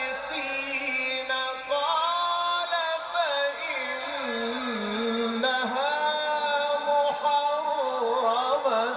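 A male Quran reciter's voice in melodic tajweed recitation, drawing out long ornamented notes that bend up and down, rising in pitch a couple of times and sinking back.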